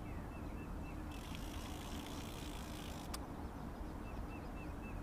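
Steady low outdoor rumble, like wind on the microphone. Runs of short high chirps come near the start and again near the end, with a brief hiss from about one to three seconds in and a single click just after.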